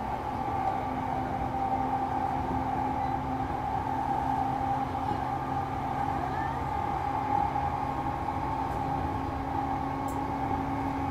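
Running noise of a Shonan-Shinjuku Line electric commuter train: a steady hum with a few fixed pitches over an even rumble of wheels on rails, with no change in speed.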